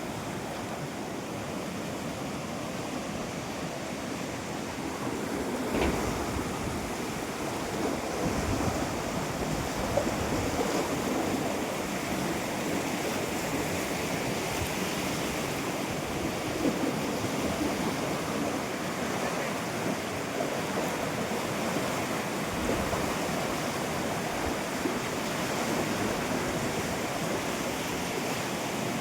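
Waterfall: a steady rush of falling water, with wind buffeting the microphone now and then.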